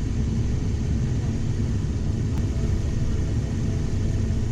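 Steady low rumble of a running vehicle, even throughout, with a faint steady tone above it.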